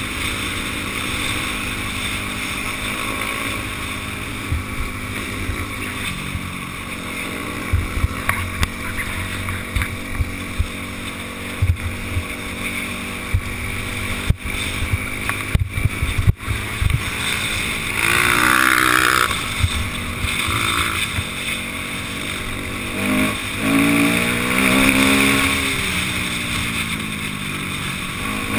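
Enduro dirt bike engine running steadily while riding a rough gravel track, with wind on the microphone and scattered thumps from the bumpy ground. In the second half the engine pitch rises and falls a few times as the throttle is worked.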